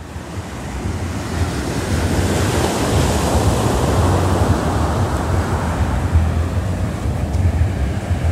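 Small ocean waves breaking and washing up a sandy beach, a steady surf hiss, with wind rumbling on the microphone. It fades in over the first second or so.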